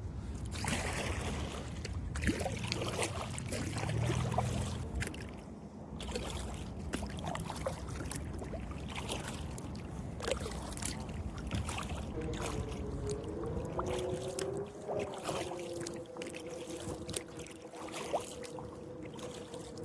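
Kayak paddle strokes in river water, with splashes and drips. From about twelve seconds in, a steady two-tone hum joins in underneath.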